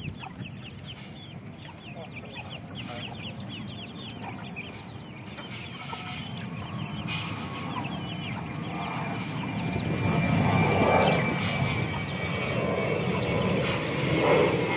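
A flock of free-range village chickens feeding: many chicks peep in quick falling chirps while hens cluck. In the second half a low rumble builds up and grows louder over the birds.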